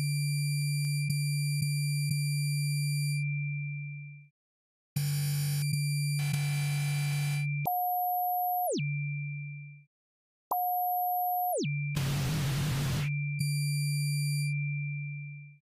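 Synthesized electronic tones from the midiPhon iPhone synthesizer app: a steady low hum with a thin high whistle above it, broken by bursts of hiss and two sharp downward pitch sweeps. It plays in three phrases, each fading out and followed by a short silence.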